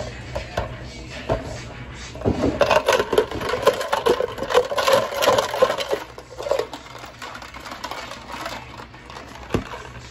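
Rapid clattering of glassware and drink-making utensils for about four seconds, starting about two seconds in, then a few scattered knocks.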